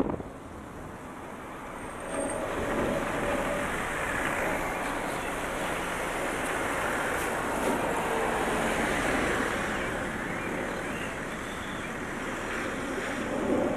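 Steady road traffic noise: a continuous wash of passing cars.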